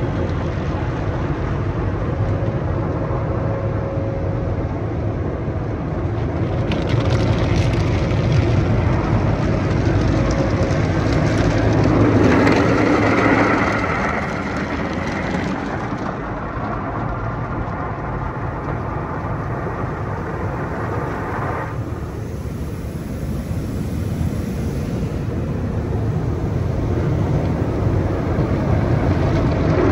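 Tunnel car wash heard from inside the car: water and foam spraying onto the glass and cloth wash material scrubbing over the body, over a steady low rumble. It grows louder in the middle, and the hissing spray cuts off sharply about 22 seconds in.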